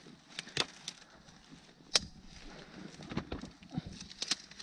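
Dry twigs and sticks snapping and cracking as brushwood is gathered by hand: several separate sharp snaps, the loudest about two seconds in.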